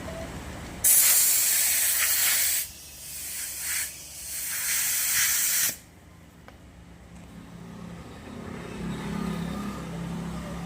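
Compressed air hissing from a tyre inflator hose as air is put into an e-rickshaw tyre to check it. It comes in two loud bursts, the first starting about a second in, the second cutting off suddenly a little past halfway.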